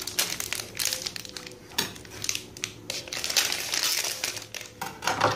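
Plastic packaging crinkling and crackling as it is torn open and handled.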